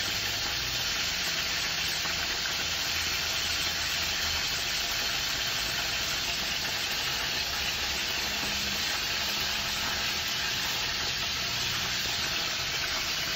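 Food sizzling in a hot pan on the stove: a steady, even hiss.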